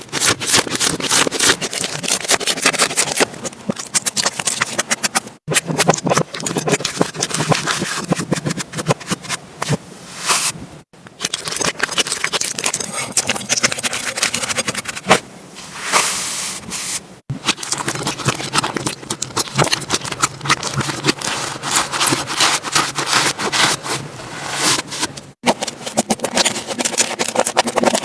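Slime being squished, pressed and stretched by hand, with dense crackling and popping clicks. The sound drops out abruptly four times, for a split second each.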